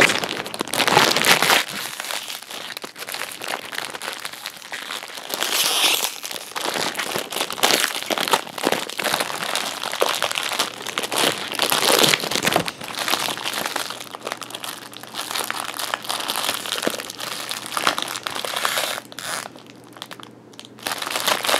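Clear plastic packaging bags crinkling and crackling as toy kunai are worked out of them by hand. The crinkling eases off briefly near the end, then picks up again.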